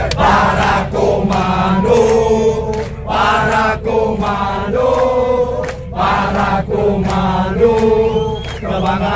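A group of soldiers chanting a military yel-yel together, a run of held, sung notes.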